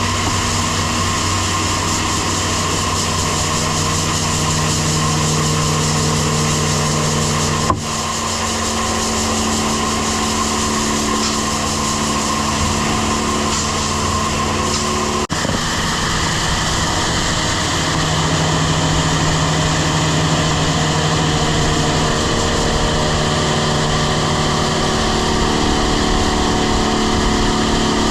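Tractor-driven grain vac running steadily: an engine drone under a constant rushing hiss as corn is vacuumed out of the crib, with two very brief dropouts partway through.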